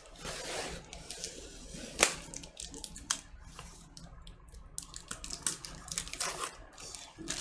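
Hands working at a cardboard vinyl record mailer, fingers picking at its packing tape: scattered scrapes and sharp clicks, the sharpest about two seconds in.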